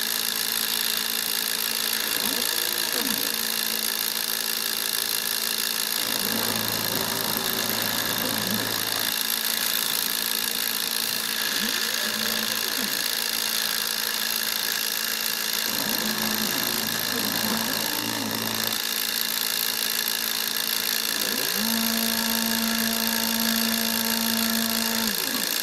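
Hobby CNC router engraving hardboard: the spindle motor runs with a steady high-pitched whine, which the owner considers too slow for the job. The axis motors hum in a low tone during each move, gliding up and down in pitch as they speed up and slow down, about six times with short pauses between.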